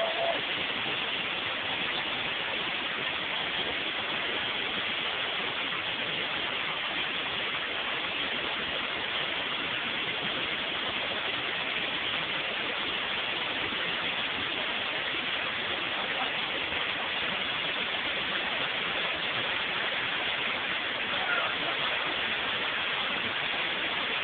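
White water rushing over the rocks of a river rapid, a steady, unbroken rush.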